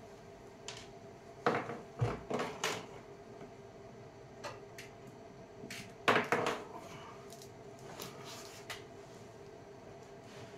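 Knocks and clunks of a wooden drawer and its metal side-mount slides being handled and fitted into a workbench opening. There is a cluster of knocks about one and a half to three seconds in, and the loudest clatter about six seconds in.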